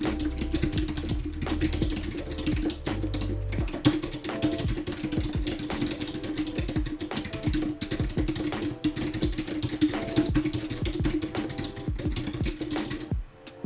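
Fast typing on a computer keyboard, a dense irregular clatter of key clicks, over background music with a held tone and a bass part that drops out about four seconds in. The music and typing stop shortly before the end.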